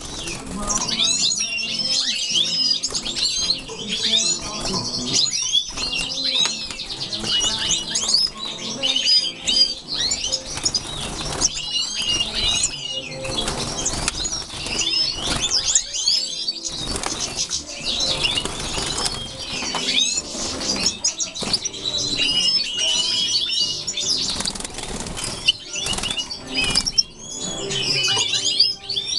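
A group of caged European goldfinches twittering and chattering in fast, overlapping chirps, with wings fluttering as the birds hop and fly between perches.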